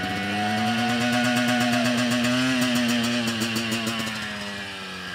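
2003 Suzuki RM125's single-cylinder two-stroke engine held at high revs, its pitch climbing slightly and then easing off over the last couple of seconds.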